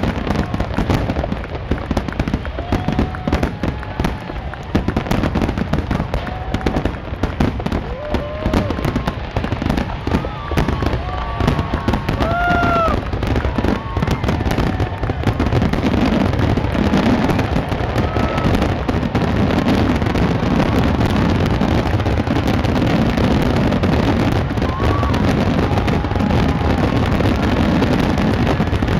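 Aerial fireworks shells bursting with rapid bangs and crackle. About halfway through they merge into a dense, continuous barrage.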